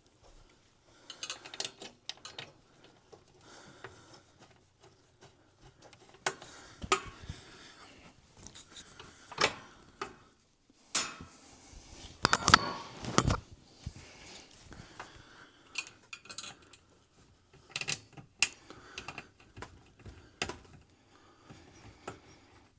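Bolts and metal hardware being handled and fitted by hand into a crib frame: scattered irregular clicks and knocks, with a longer, louder stretch about halfway through.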